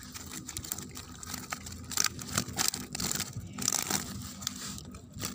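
Irregular rustling and crinkling handling noise, a run of scattered small scrapes, clicks and crunches.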